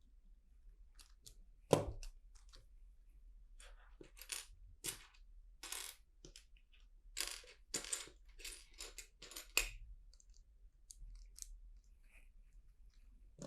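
Small plastic LEGO pieces clicking and clattering as they are handled and pressed together, in scattered bursts, with one sharp click about two seconds in.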